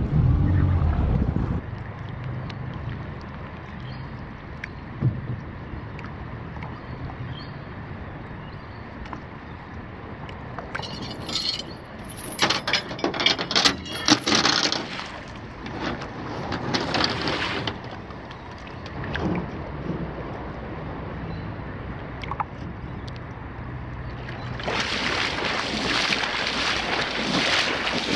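Outboard motor of a small aluminium boat idling low and steady in calm water, broken in the middle by a run of louder knocks and splashes. Near the end, a person wades through knee-deep water, splashing.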